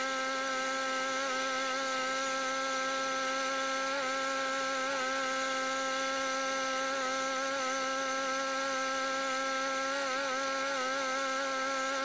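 Portable band sawmill running: a steady pitched mechanical whine with a slight waver in pitch about four seconds in and again near the end.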